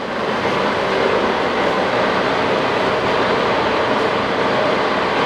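Steady running machinery noise: an even whir with a faint steady hum underneath.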